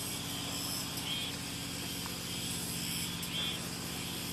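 Steady low mechanical hum with a faint high hiss, and short high chirps recurring every second or two.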